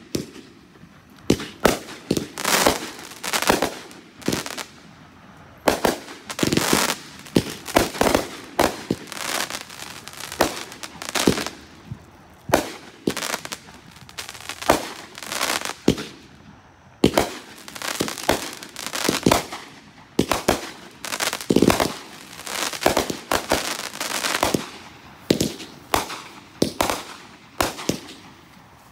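Aerial fireworks bursting one after another overhead, a long irregular run of sharp bangs and cracks, often several a second, with a brief lull about halfway through.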